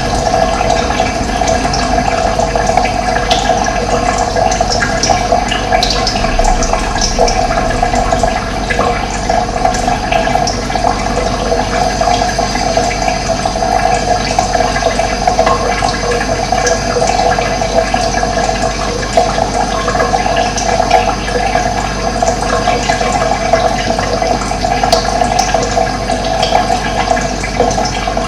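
Running water flowing steadily in a continuous rush, with short high bird chirps now and then.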